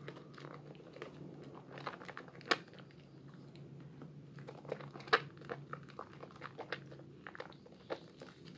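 Hands squeezing and kneading a soaked, mushy bar of soap in thick lather: wet squelching and crackling with irregular clicks and two sharper snaps, over a steady low hum.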